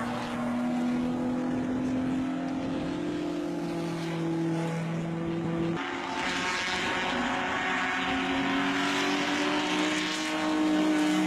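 Racing touring cars' engines running at speed, their engine note climbing slowly as they accelerate. The sound changes abruptly about six seconds in, where the footage cuts, and then climbs again.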